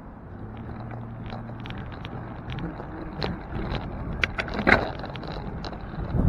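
City street traffic: a motor vehicle's steady engine hum through the first half, over road noise, with scattered clicks and rattles, the sharpest about three-quarters through.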